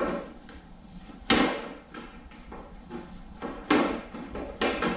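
A few sharp clunks and knocks: the loudest about a second in, two more near the end, with lighter clatter between.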